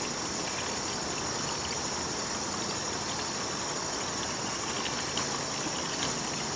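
Liquid mead must, honey water with herbs, pouring steadily from a stainless stockpot through a funnel into a glass carboy: an even trickling and splashing with no breaks. A steady high-pitched whine runs behind it.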